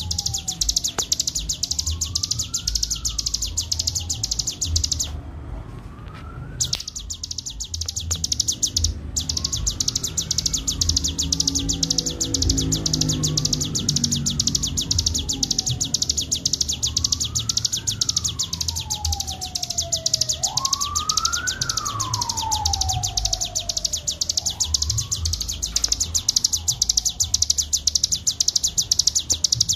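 Ciblek gunung (cigun) songbird singing a fast, continuous high-pitched rattling trill, the 'ngebren' song, with one short break early on. Behind it a siren wails, rising and falling every few seconds.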